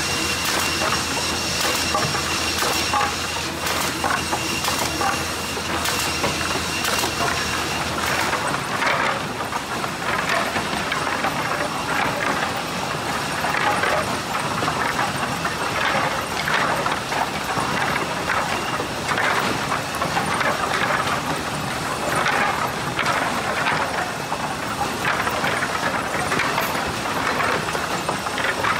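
Sawmill resaw line running: for about eight seconds a steady motor hum with a high whine and scattered clicks, then irregular clatter and knocking of cut pine boards on a conveyor line.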